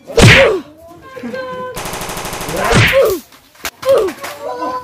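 Young actors yelling and shouting during a staged fight, with a rapid rattle like machine-gun fire about two seconds in that lasts about a second.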